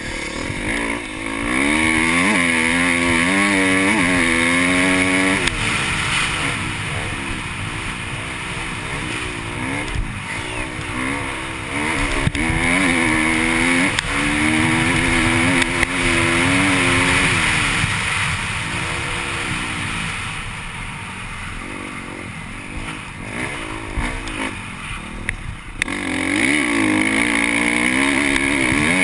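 KTM dirt bike engine heard from on board the bike, revving up and down as the throttle is worked while riding. It eases off for several seconds about two-thirds of the way through, then picks up again near the end.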